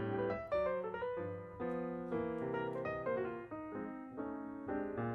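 Background piano music: a gentle run of single notes and chords, each struck and left to fade.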